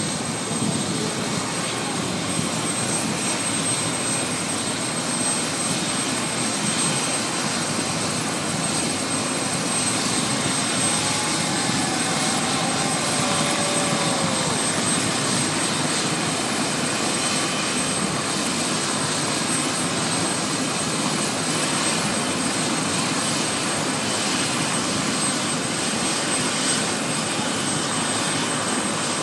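Helicopter engine and rotor running steadily, a continuous even noise with a faint high whine.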